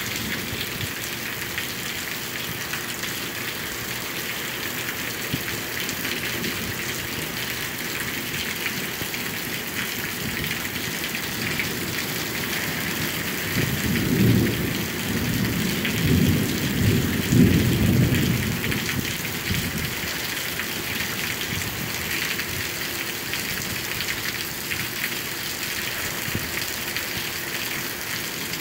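Rain falling steadily in a thunderstorm, a constant hiss. About halfway through, a low rolling rumble of thunder swells several times over roughly five seconds, then fades back into the rain.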